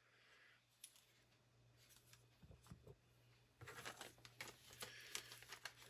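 Faint handling sounds of items being taken out of a box: a few soft ticks, then light rustling and small clicks from a little past halfway, over a steady low hum.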